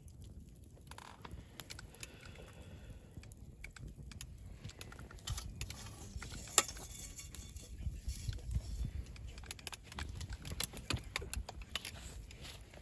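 Wood campfire crackling with irregular sharp pops, one louder pop a little past halfway, over a low rumble.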